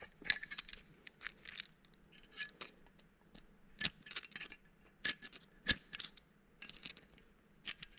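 Irregular small metallic clicks and scrapes of a flat screwdriver working a spring security pin into a brake caliper's pad retaining pin, with the loudest click a little before six seconds in.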